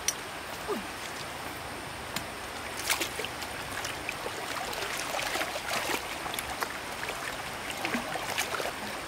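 Stream water trickling, with many small splashes and drips that grow busier about three seconds in.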